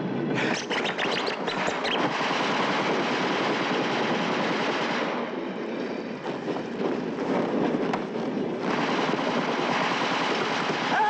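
Machine-gun and rifle fire on an old war film's soundtrack: a rapid run of shots at the start, then a dense continuous din of fire that eases in the middle and swells again near the end.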